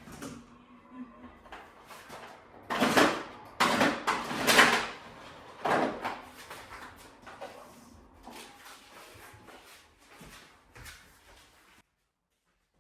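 Household clatter of things being handled and put away, with a few loud, short scraping rushes in the middle, like drawers or cupboards being worked. The sound cuts off suddenly near the end.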